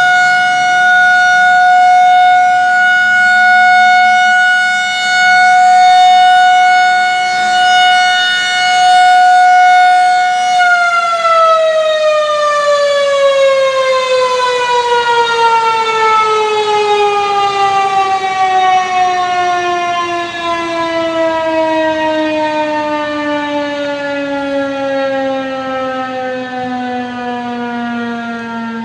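Federal Signal 2001-130 rotating electromechanical tornado siren sounding a steady tone, its loudness swelling and dipping as the head turns. About ten seconds in, it is shut off and winds down, the pitch falling slowly and the sound fading as the rotor coasts to a stop.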